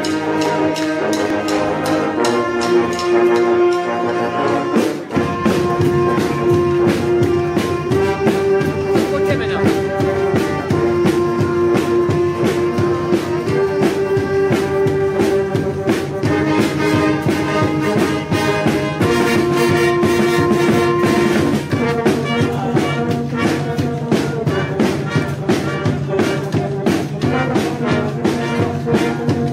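A banda, a festive brass band of trumpets, trombones, saxophones and sousaphone with snare and bass drum, playing a tune; it grows fuller and louder about five seconds in.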